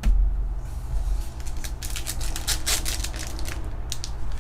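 Pokémon card packs and cards being handled, a run of short crinkling crackles from the foil pack wrappers and cards, over a steady low hum.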